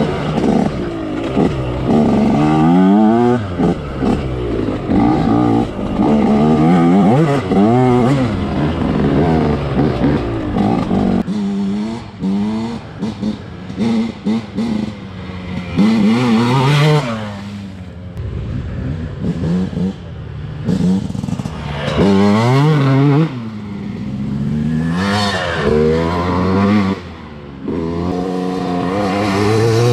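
Two-stroke dirt bike engine revving hard and backing off again and again, its pitch climbing and falling as the throttle is opened and closed, with short drops in loudness between pulls.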